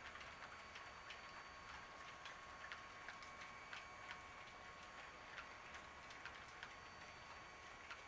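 Model freight train cars rolling past, their wheels clicking faintly and unevenly over the rail joints, about two to three clicks a second, over a faint steady high hum.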